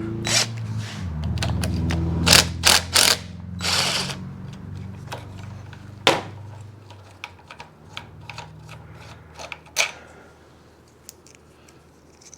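Hand tools and metal motorcycle fork parts clinking and knocking as a 1/2 inch bolt is worked loose, a handful of sharp clicks mostly in the first half. A low steady hum runs under them and fades out about six seconds in.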